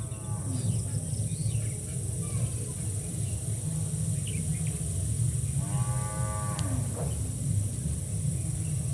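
A steady low drone throughout, with a short pitched call about six seconds in and a sharp click just after it.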